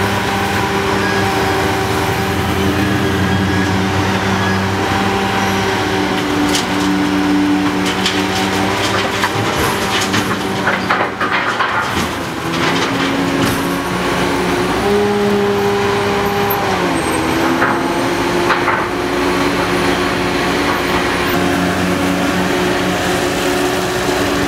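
Hitachi ZX800 excavator's diesel engine running steadily at working speed, its pitch stepping up a little over halfway through and settling back a couple of seconds later. Short knocks and clunks come around the middle.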